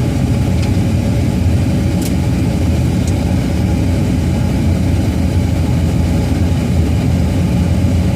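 Steady low rumble of a car being driven, heard from inside the cabin: engine and road noise, with a couple of faint ticks.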